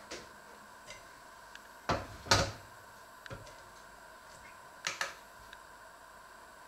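A stainless steel mixing bowl and a digital kitchen scale handled on a wooden cutting board. Two sharp knocks about two seconds in are the loudest, another pair of knocks comes about five seconds in, and there are a few light clicks.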